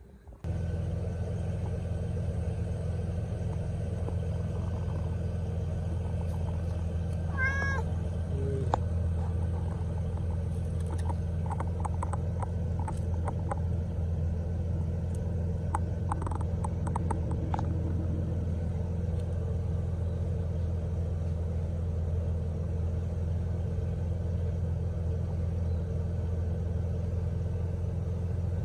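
Kitten meowing once, a short rising-then-falling call about seven seconds in, with scattered brief high chirps later, over a steady low rumble.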